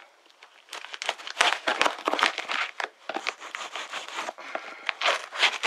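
Large cardboard box being cut and torn open along its top: irregular crackling, scraping and tearing of cardboard in uneven bursts, starting just under a second in.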